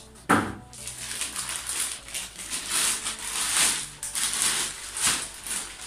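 Packaging being pulled off an AV receiver: a sharp knock about a third of a second in, then repeated crinkling and rustling of a clear plastic bag and foam packing.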